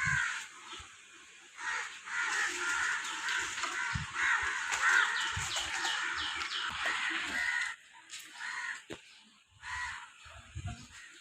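Birds calling over and over for several seconds, falling quieter about three-quarters of the way through.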